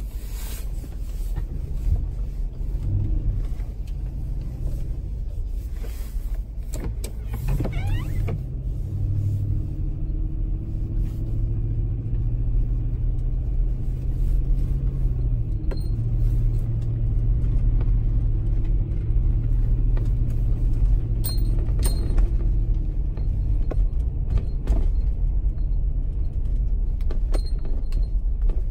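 A motor vehicle's engine running with a steady low hum. The pitch sweeps up briefly about a quarter of the way in, and there are a few faint clicks.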